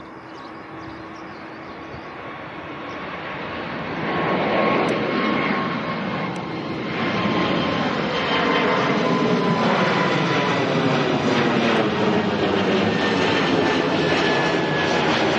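Airbus A220-300's Pratt & Whitney PW1500G geared turbofans at take-off power as the jet climbs out overhead: the engine noise grows louder over the first few seconds, jumping up about four seconds in, with a whining fan tone that slowly drops in pitch as it passes.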